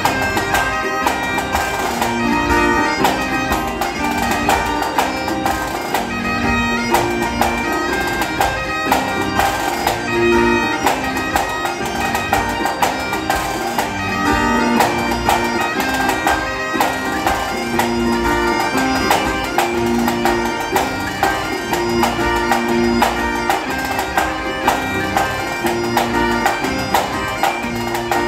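Live Celtic band playing an instrumental tune: bagpipes carry the melody over their steady drone, with a snare drum keeping a regular beat and acoustic guitars and mandolin strumming along.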